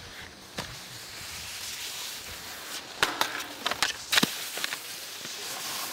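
Skis hissing over packed snow, then a cluster of sharp clacks and knocks about three to four seconds in as the skis strike and slide across a tube rail and land, followed by the steady hiss of skis sliding on snow.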